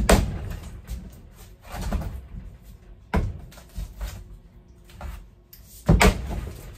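Single-bit axe, a True Temper Kelly Perfect, chopping into a hard wooden round on a chopping block: four heavy strikes, the last and loudest about six seconds in as the round splits apart.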